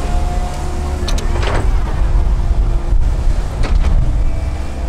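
Komatsu PC138US hydraulic excavator's diesel engine running steadily under load, with a whine from the hydraulics as the machine swings and lowers its boom. A few short knocks come about a second in and again near the four-second mark.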